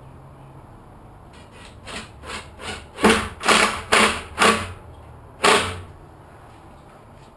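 About ten knocks on the wooden bottom of a timber door where a new trim board is being fitted: a few light taps, then four loud knocks about half a second apart and a last one a second later.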